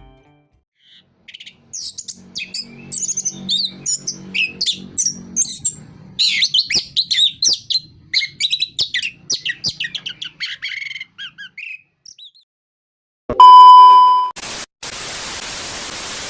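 Chestnut-capped thrush (anis kembang) singing a fast, varied run of whistled notes and trills for about ten seconds. Near the end a click and a loud, steady beep about a second long, then a hiss of static.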